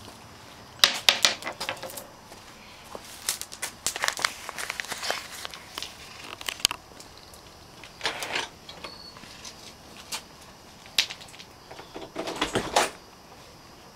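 Small stones clicking and clattering on a concrete step and in loose gravel as a toddler handles and drops them, in irregular bursts of sharp knocks and rattles.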